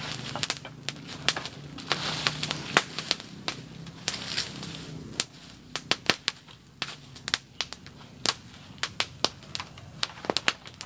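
Smoky fire on the ground crackling, with many sharp, irregular pops and snaps.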